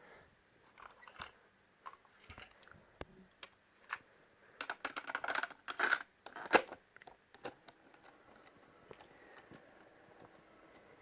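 Scattered plastic clicks and knocks of a cassette player being handled, with a denser patch of scraping and rattling about five to six and a half seconds in.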